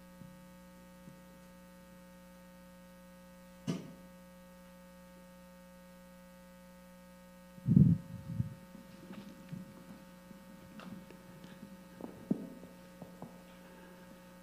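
Steady electrical mains hum from the sound system. There is a sharp click about four seconds in and a loud low thump near the middle, then scattered light knocks and rustles of microphone and stand handling.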